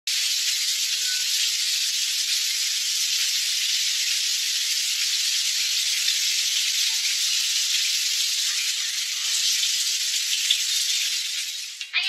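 Water pouring from a 12-inch square rainfall shower head, a steady hiss of spray that fades out near the end.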